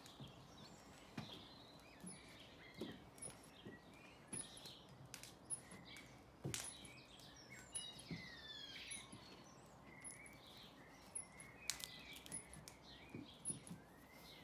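Faint birdsong: several birds chirping and calling in short, sliding notes over a quiet outdoor hiss. A few sharp clicks break in, the clearest about six and a half seconds in and again near twelve seconds.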